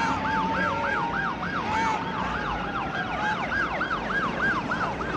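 Several fire engine sirens in a fast yelp, overlapping, each rising and falling about four times a second, with a slower wailing siren tone beneath them during the first two seconds.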